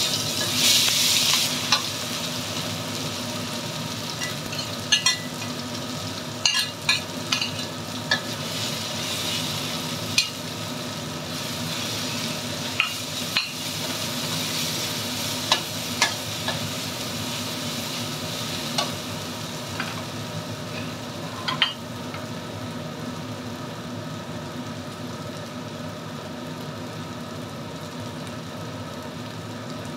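Ground spice paste (bumbu) frying in hot oil in a wok: a steady sizzle that flares up in the first couple of seconds, with a metal spatula stirring and clinking against the wok now and then.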